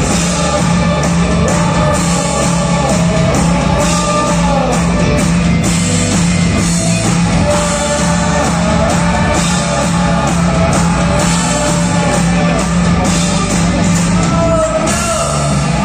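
Live rock band playing loudly, with drums, electric guitars and keyboards and a singing voice over them, heard from the audience in a large hall.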